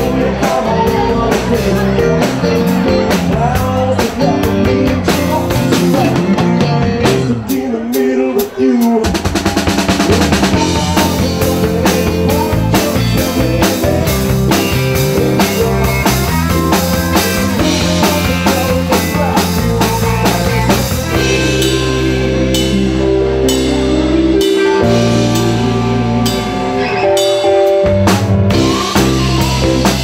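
Live rock band playing loudly: electric guitars over a drum kit keeping a steady beat, with a short break in the low end about eight seconds in followed by a run of quick drum strokes.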